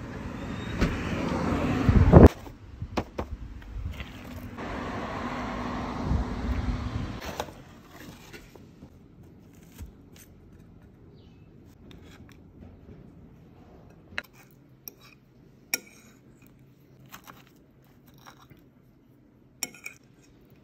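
A loud rushing noise builds to a peak about two seconds in and cuts off sharply, and a second swell follows. Then comes a quiet stretch of scattered sharp clicks and scrapes of a metal fork on a ceramic plate.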